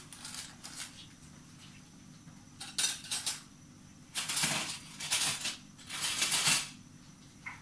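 A handful of short clinking, rattling bursts from kitchen items being handled on a counter, mostly in the second half.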